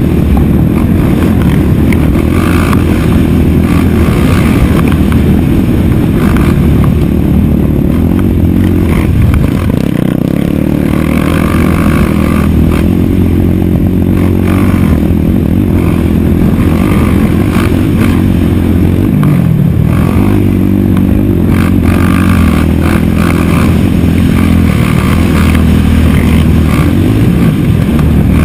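Race quad's single-cylinder engine heard onboard at full race pace, revving up and down with throttle and gear changes, with a brief lift off the throttle about ten seconds in.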